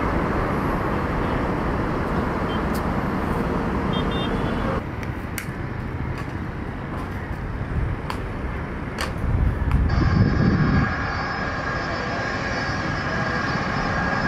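Jet airliner engines: a steady rush from a Boeing 787-10 on the runway that cuts off suddenly about five seconds in. After a quieter stretch with a few sharp clicks, an Airbus A330-300's engines give a steady multi-tone whine as it taxis.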